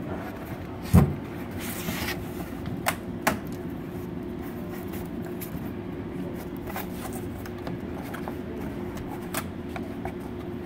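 Hands bending and pressing a sheet of white cardboard along its creases on a tabletop: a sharp thump about a second in, then a few scattered clicks and rustles of the board, over a steady room hum.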